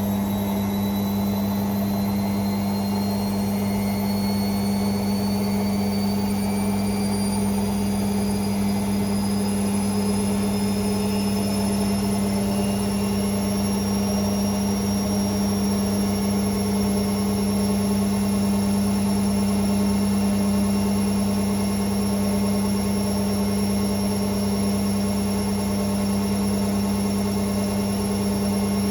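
Hoover Sportswear 1300 washing machine in its fast spin cycle: a steady hum with a high motor whine. The whine rises in pitch over about the first half, then holds steady as the drum reaches its top spin speed.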